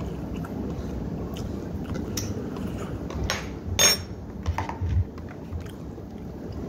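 Sharp clicks and knocks from things handled at a meal, the loudest nearly four seconds in, over a steady low hum.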